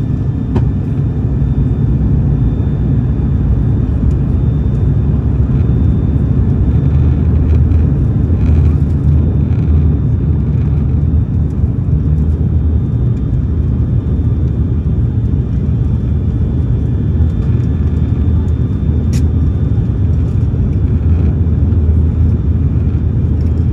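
Cabin noise inside an ATR 72-600 turboprop airliner in flight: the steady low drone and hum of its twin turboprop engines and propellers, with rushing airflow.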